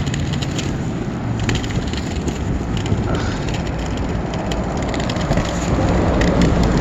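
Inline skate wheels rolling over a concrete sidewalk: a steady rumble with scattered small clicks.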